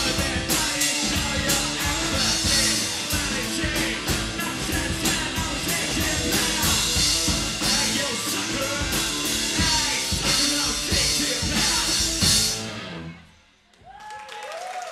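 Rock band playing live: a singer over distorted electric guitars, bass and a Pearl drum kit. The song ends with a final hit about 12 seconds in and cuts off, and audience applause and shouts start near the end.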